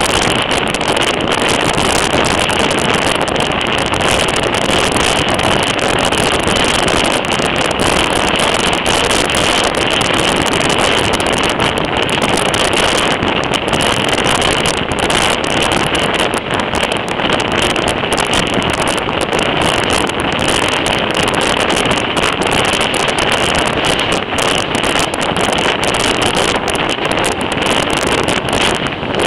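Steady loud rush of wind over a microphone held out of the window of a moving passenger train, with the train's running noise on the track beneath.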